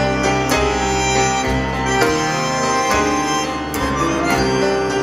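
Tango ensemble of bandoneon, piano and double bass playing an instrumental passage, with several sharp accented attacks over sustained notes and a moving low bass line.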